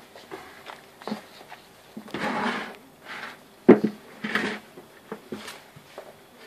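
Springer spaniel puppies scuffling on a wooden shelf unit piled with towels: scattered knocks against the wood and rustling of bedding, with two short bursts of scuffling and a sharp knock about three and a half seconds in, the loudest sound.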